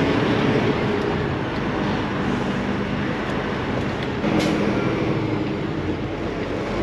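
Semi truck engine and road noise heard from inside the cab while driving, steady throughout. A short click comes about four seconds in, after which the engine hum grows a little stronger.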